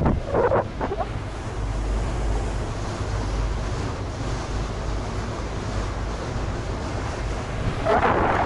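Wind buffeting the microphone and water rushing past the hull of a moving ferry, over a steady low rumble.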